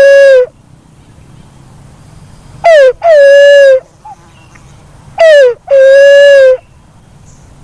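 Black-naped fruit dove (walik kembang) calling: a loud, repeated two-note hoot, a short falling note followed by a longer held note. It comes twice, about two and a half seconds apart, with the end of a previous hoot at the very start.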